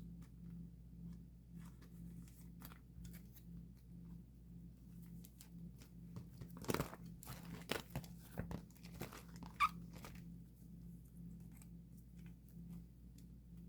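Plastic photocard sleeves and cards being handled: light crinkling and small clicks, busiest in the middle, over a low steady hum.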